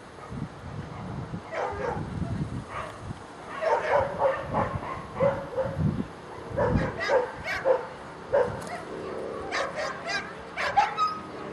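Dogs barking and yipping in a rapid, irregular series of short, high calls, in clusters that come and go.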